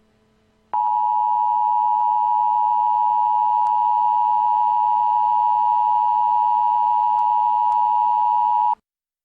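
Emergency Alert System attention signal: a loud, steady two-tone beep near 1 kHz that starts just under a second in, holds unchanged for about eight seconds and cuts off suddenly.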